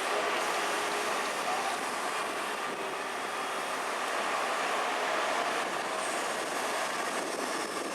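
Heavy construction machinery running with a steady mechanical noise and no distinct events.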